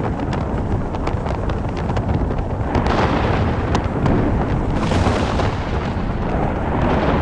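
Thunder rumbling over a steady rush of noise, swelling about three seconds in, again around five seconds and near the end, with scattered faint ticks.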